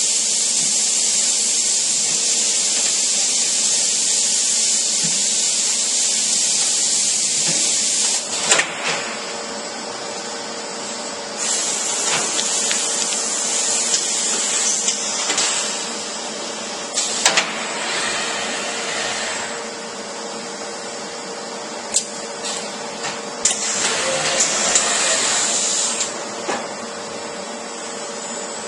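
Busellato CNC woodworking machine at work: several long hissing rushes, the first lasting about eight seconds and three shorter ones later, with sharp clicks and knocks between them over a steady machine hum.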